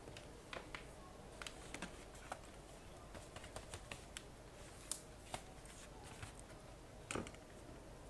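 Scattered light clicks and taps of hands handling a ThinkPad T500 laptop's plastic case and turning it over on the bench, with a louder knock about five seconds in and a short cluster about seven seconds in.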